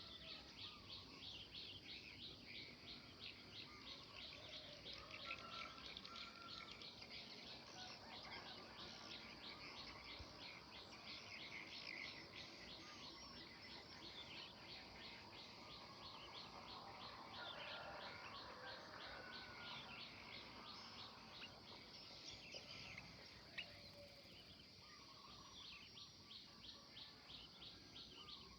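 Faint birdsong: several birds chirping and calling, over a rapid, even run of high repeated chirps.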